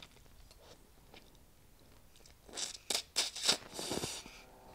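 A person eating soupy instant noodles: faint chewing, then from about halfway through a quick series of loud, wet slurps of noodles and broth, the last one longer.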